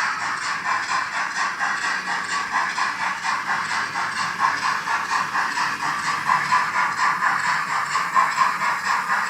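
Sound decoder of a Roco H0 class 01 steam locomotive model playing steady steam chuffing, about four to five beats a second, through the model's onboard speaker.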